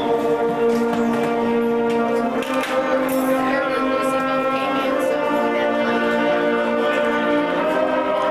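Processional music of long, held wind-instrument notes, shifting to a new pitch every second or two.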